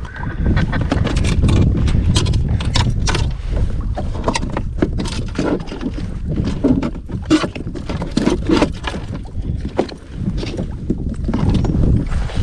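Repeated knocks and clatter against a plastic fishing kayak, over a steady low rumble of wind and water on the microphone.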